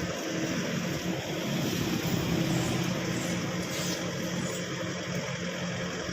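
Backhoe's diesel engine running steadily with a constant hum.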